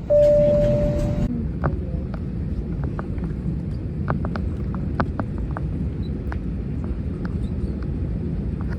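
Steady low rumble of an airliner cabin, with scattered light clicks and knocks. It opens with a steady tone and a hiss that stop abruptly after about a second.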